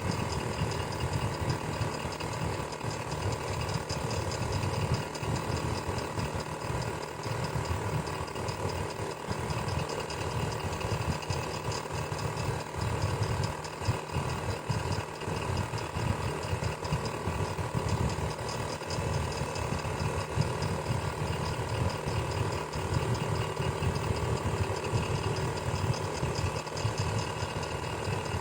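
Electric fan running steadily: a constant motor hum with the whir of the blades, unchanging throughout.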